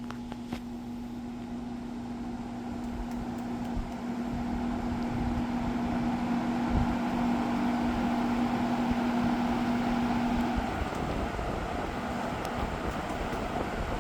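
Happy Home window box fan spinning up from off to high: the rush of air from the blades grows louder over the first several seconds, then holds steady. A steady motor hum runs under it and drops out about ten and a half seconds in.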